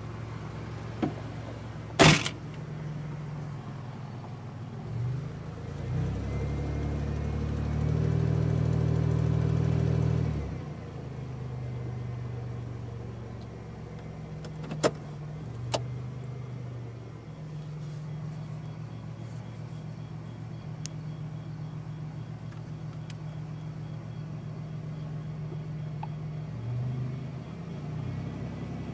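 Car engine running with an exhaust leak, a steady low note that runs louder for about four seconds in the first half. A sharp click sounds about two seconds in, and two smaller clicks a little past halfway.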